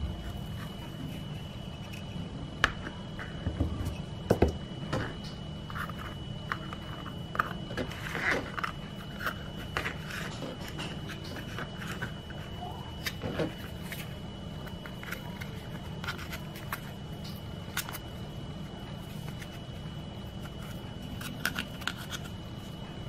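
Hands handling pie dough and a small fluted metal tart tin on a silicone baking mat: soft scrapes and rustles with scattered light taps and clicks as the tin and dough are moved and pressed. Under it runs a steady low hum with a faint steady high whine.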